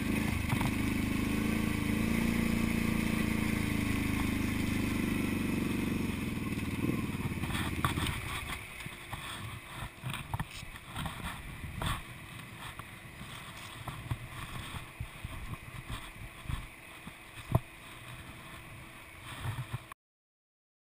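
Kawasaki KFX700 quad's V-twin engine running at a steady pace, then shutting off about eight seconds in. After that come scattered knocks and handling noises with wind on the microphone, and one sharper knock near the end.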